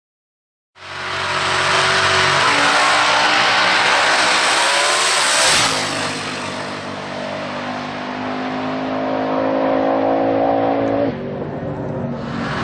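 Twin-turbocharged Holden Commodore drag car at full throttle down the strip, its engine note climbing steadily. The sound starts about a second in. Around five and a half seconds in it peaks and the pitch drops as the car passes, then the note climbs again.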